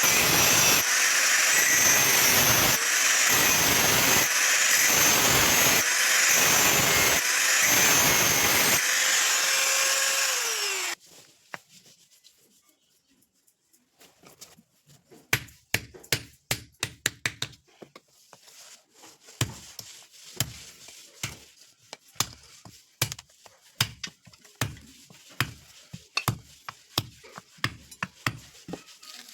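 Electric grinder running against steel, its load rising and falling in a steady rhythm. About eleven seconds in the motor winds down and stops, and after a short pause come scattered light taps and clicks.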